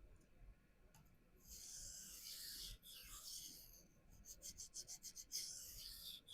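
Gerber Fastball's CPM-S30V blade being stroked freehand across a vitrified diamond sharpening stone, a dry, rasping scrape. After a quiet start and a light click, come a long stroke or two, then a run of short quick strokes and another longer stroke near the end. The bevels are being ground to match: an asymmetric edge bevel being evened out.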